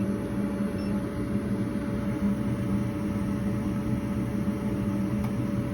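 Old gas furnace running, its draft inducer motor humming steadily with a constant tone.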